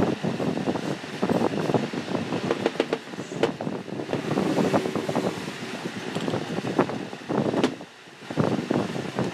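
Hand wire brush scrubbing rust off a cast-iron water-pump housing in rapid, uneven back-and-forth strokes, with a couple of sharp knocks and a brief pause near the end.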